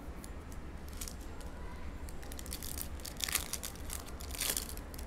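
Foil trading-card pack wrapper crinkling as it is torn open by hand, with two louder crackling tears, about three and four and a half seconds in.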